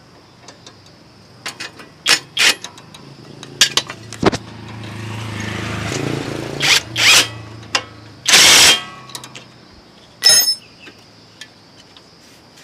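Metal tools clinking and knocking against motorbike parts, with a motorbike engine swelling and fading by about halfway through. About two-thirds of the way in comes a loud short noisy burst, then a ringing metal clank.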